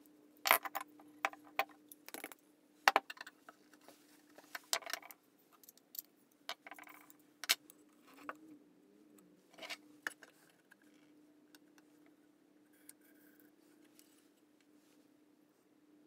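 Sharp metallic clinks and clicks of a vintage Anchor hand plane's metal parts being handled on the bench, thinning out after about ten seconds. A steady low hum runs underneath.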